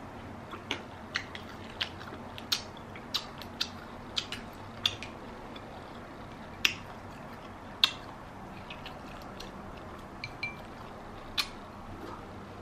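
Close-miked eating with the hands from a seafood boil: irregular sharp, wet clicks and smacks, about fifteen of them, over a steady low background hiss.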